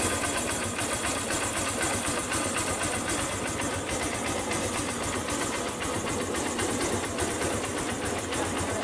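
Motorcycle engine running steadily, with no revving up or down.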